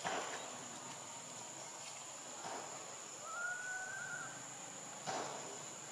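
Steady high-pitched drone of a forest insect chorus, with a single thin whistled note lasting about a second roughly halfway through and a few soft rustles.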